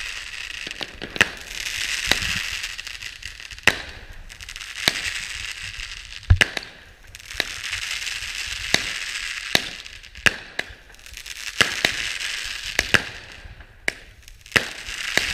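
Fireworks going off overhead: many sharp bangs of bursting rockets and shells at uneven intervals over a continuous crackling hiss that swells and fades. The heaviest, deepest boom comes about six seconds in.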